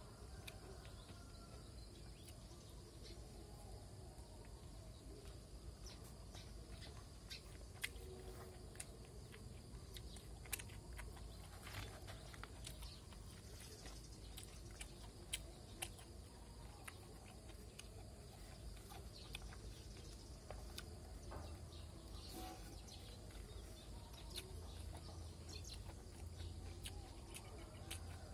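Faint outdoor ambience: a steady low rumble with scattered small clicks and ticks, and faint bird calls.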